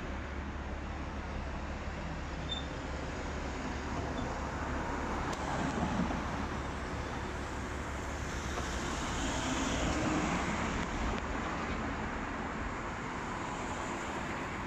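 Steady city road traffic, cars and buses passing, with the noise swelling a little about ten seconds in as vehicles go by.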